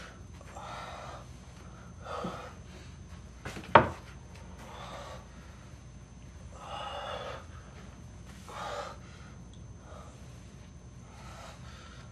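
A man breathing hard in distressed gasps, a run of heavy breaths every second or two, with one sharp knock about four seconds in.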